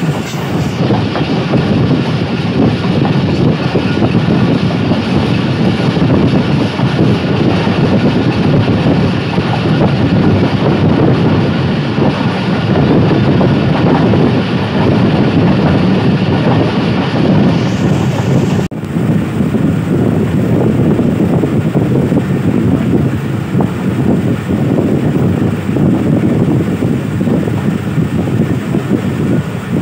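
A passenger train coach running at speed, its wheels on the rails making a steady low rumble. About 19 seconds in, the sound abruptly loses some of its higher hiss.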